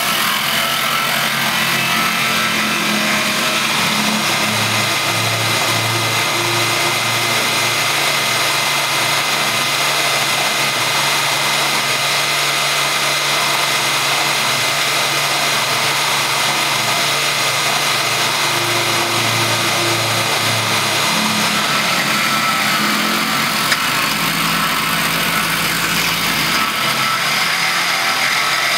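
Sieg X3 CNC milling machine cutting a wooden block with an end mill: the spindle runs with a steady whine over the continuous noise of the cutter chewing through the wood. A lower hum rises and falls through the middle part.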